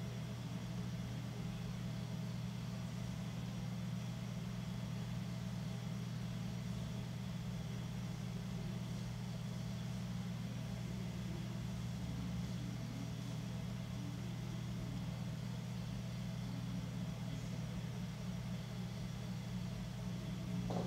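Electric potter's wheel motor running with a steady low hum as the clay jar turns.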